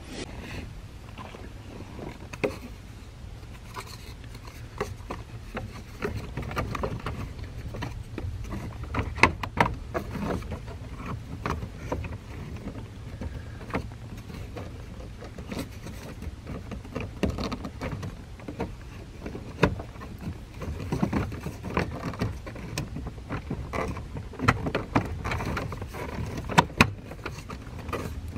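Scattered clicks, knocks and scraping of plastic steering-column trim being fitted and pressed back into place by hand, with a few sharper snaps.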